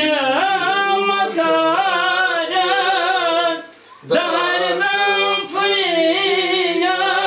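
A single unaccompanied voice singing a wavering, ornamented melody in two long held phrases, with a short breath pause just under four seconds in.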